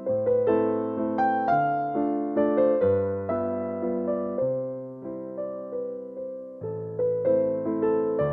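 Background piano music: a gentle melody of struck notes over changing chords, each note fading after it is played.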